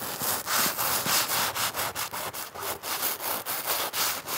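Fingertip scraping across frost on a Big Agnes tent's nylon fly, drawing in the ice: a quick run of scratchy rubbing strokes, about four a second.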